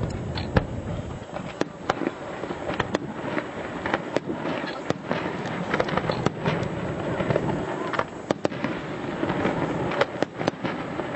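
Fireworks display going off: sharp bangs and pops at irregular intervals, several a second at times, over continuous crackling.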